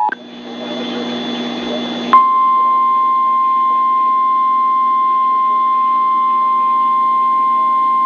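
A two-tone emergency alert attention signal cuts off at the start, followed by about two seconds of radio hiss with a faint hum. Then NOAA Weather Radio's single-pitch warning alarm tone comes in sharply and holds steady, the tone sent to switch on weather alert receivers.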